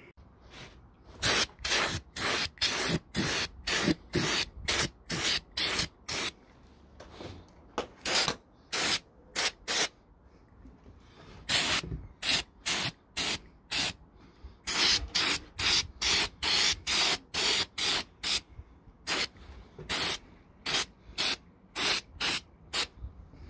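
Aerosol spray paint can fired in short repeated bursts: quick hisses about two a second, in runs broken by a few brief pauses.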